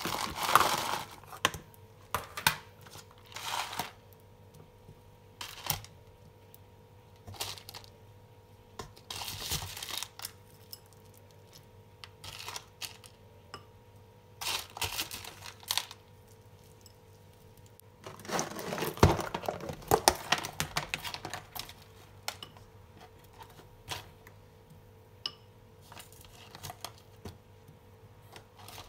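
Irregular handling sounds of breakfast being prepared: short rustles, clicks and knocks with quiet gaps between them, the loudest cluster about nineteen seconds in, over a faint steady hum.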